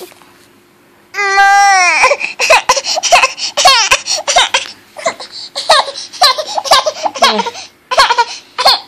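Baby of about eight and a half months vocalising: a long high-pitched squeal about a second in, then a run of short, choppy squeals and giggles until near the end.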